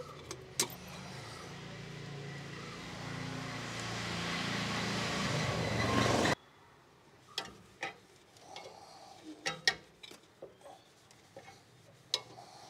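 Engine oil being poured into the engine's oil filler, a steady rushing pour that grows louder and stops suddenly about six seconds in. It is followed by scattered light clicks and knocks.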